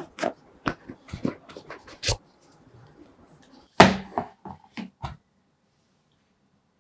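Cardboard phone box being opened by hand: a run of light taps and scrapes as the white lid is worked off, then a louder knock about four seconds in as the lid is set down on the table, followed by a few small taps.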